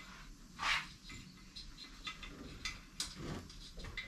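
Small clicks and ticks of a trolling-motor pull cable and its plastic fittings being handled as the cable is fed through, with a short scrape about a second in.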